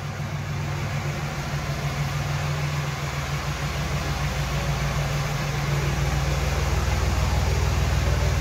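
A 2006 Dodge Ram 2500's Cummins 5.9-litre inline-six turbodiesel running at low speed as the truck creeps forward. Its steady low drone grows gradually louder toward the end as the truck pulls close.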